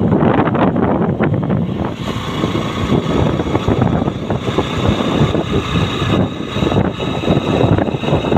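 Wind rushing over the microphone of a motorcycle ridden at about 50 km/h, with the bike's engine and road noise running underneath.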